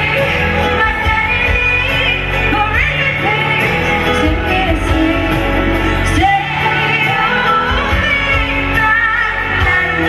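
Live pop ballad: a woman singing into a microphone over band accompaniment, her voice sliding between notes a few times.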